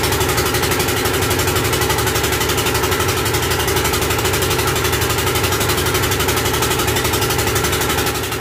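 Small fishing boat's engine running steadily, with a rapid, even beat of firing strokes.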